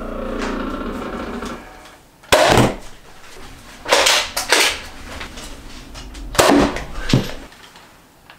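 Spring-powered Nerf Rival Chronos foam-ball blaster fired several times, one sharp pop every second or two, as it is reloaded and fired shot by shot.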